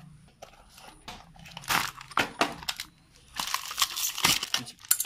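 Hands opening a cardboard Beyblade toy box and handling its plastic packaging: irregular tearing, rustling and crinkling of card and plastic.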